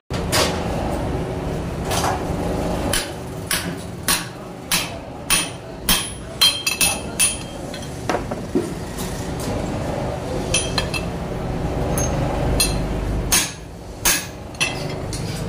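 Hammer blows on a steel punch sitting in a steel press die, driving a motorcycle crankshaft pin home: sharp metal-on-metal clanks with a short ring, in irregular runs, thickest in the middle and again near the end.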